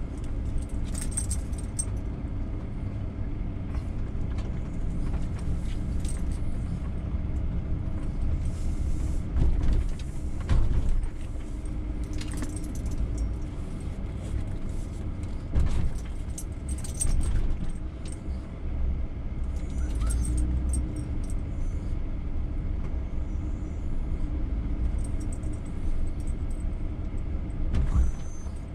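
Roadtrek camper van driving slowly, heard from inside the cab: a steady low engine and road rumble with jingling and rattling from the cabin. Several heavier jolts over speed bumps, around a third of the way in, a little past halfway and again near the end.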